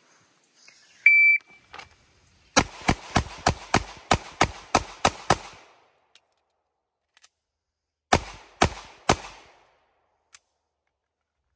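A shot timer beeps once, then a Walther PDP pistol fires a quick string of about ten shots in under three seconds. After a pause of nearly three seconds for a slide-lock reload, which was fumbled a little, it fires three more shots about half a second apart.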